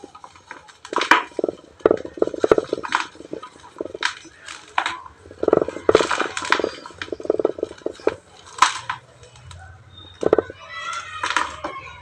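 Dry pure-cement and ash chunks being crushed and crumbling: repeated sharp crunches and crackles in irregular clusters, with a denser gritty crumble near the end.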